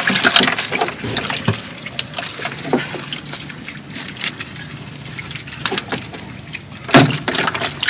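Water splashing and trickling, broken by many small irregular splashes and clicks, with one louder splash about seven seconds in.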